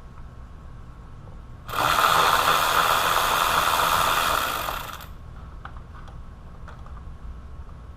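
A handheld power tool running in one steady burst of about three seconds, starting about two seconds in and then stopping, followed by a few faint clicks of parts being handled.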